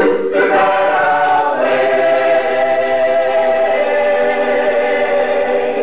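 Mixed gospel choir singing in harmony, settling about two seconds in onto a long held closing chord that dies away at the end.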